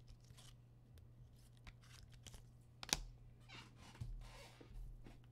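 Trading cards and card packaging handled on a table: faint scattered rustles and light taps, with one sharp click about three seconds in. A steady low hum runs underneath.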